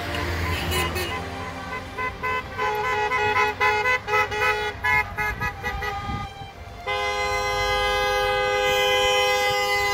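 Car horns honking as a line of cars drives past: traffic noise at first, then a quick run of short honks, and from about seven seconds in one long, steady horn blast.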